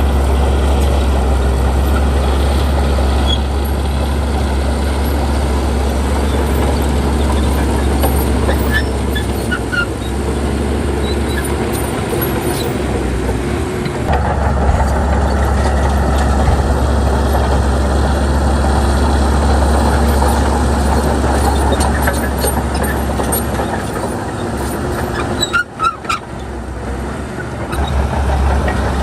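Heavy diesel earthmoving machinery running steadily and loudly, the low engine note dropping briefly near the end before picking up again.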